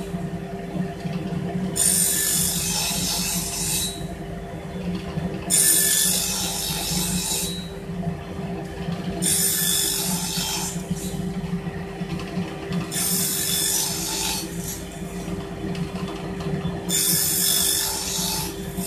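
Table saw running with a steady motor hum while its blade crosscuts a pine board five times. Each cut is a rasp of about two seconds, coming roughly every three and a half seconds.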